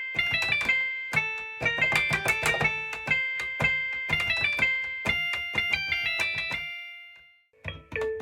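A washing machine's end-of-cycle tune played note by note on a piano-like keyboard. The melody fades out about seven seconds in, and another tune starts just before the end.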